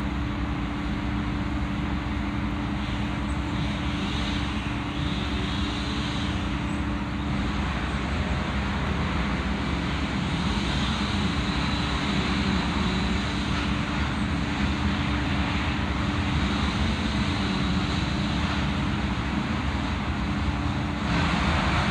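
Steady mechanical running noise: a constant low hum under a broad hiss, swelling a little near the end.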